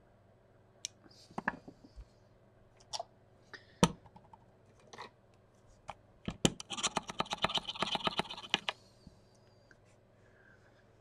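Small clicks and knocks of tools and parts being handled on a workbench. About two-thirds of the way in, a quick rattling run of clicks lasts about two seconds.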